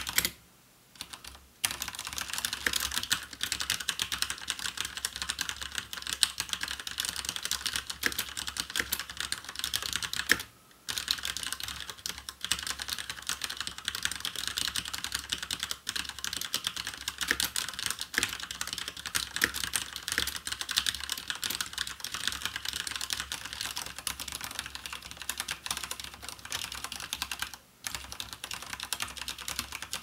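Fast, continuous typing on a Cooler Master MasterKeys Pro S mechanical keyboard with Cherry MX Red linear switches, first with thick PBT Vortex keycaps, then with the stock thin ABS keycaps, then with the PBT set again. The typing stops briefly about a second in, around a third of the way through, and near the end.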